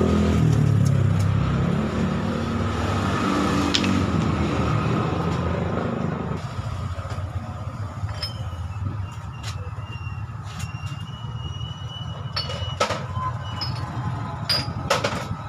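A motor vehicle's engine running close by, loudest at the start and fading out about six seconds in. After that come scattered sharp clicks.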